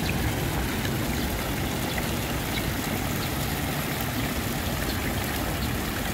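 Water flowing steadily, an even rushing hiss with faint light ticks scattered through it.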